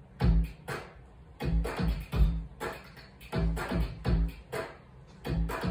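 Hip-hop record playing on a turntable: a beat of heavy kick drum and bass hits in a broken rhythm, starting a moment in, with no vocals yet.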